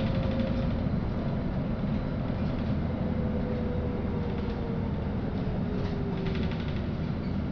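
Interior cabin noise of a LiAZ-5292 low-floor city bus in motion: a steady engine and road rumble, with a faint whine that slides down in pitch midway through.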